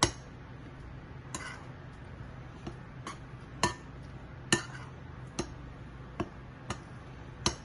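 A metal utensil clinking and scraping against a glass mixing bowl while dry gram flour and spices are stirred together. The sharp clicks come irregularly, about once a second, over a faint low hum.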